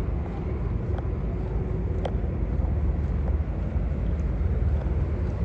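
Steady low rumble of road traffic mixed with wind buffeting the microphone, with a couple of faint clicks.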